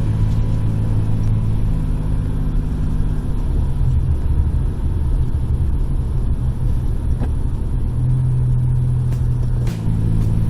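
Car driving: a steady low engine and road hum, its pitch stepping up and down a few times.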